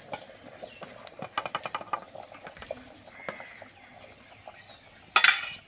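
Metal spatula knocking and scraping cold rice off a steel bowl into a pot of boiling rice. A quick run of ticks comes about a second in, and a short, louder metal scrape comes near the end.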